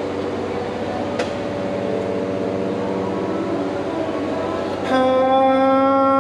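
A motor running with a steady hum, which jumps to a louder, steady whine about five seconds in.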